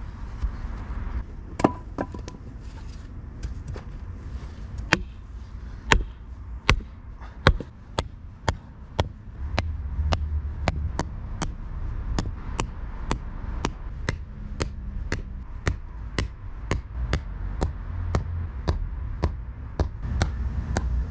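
Sledgehammer blows driving wooden stakes into sandy ground: a long, steady run of sharp knocks, about two a second.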